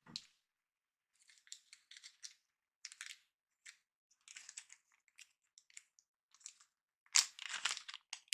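Packaging being handled: irregular crinkling and rustling, with the loudest burst about seven seconds in.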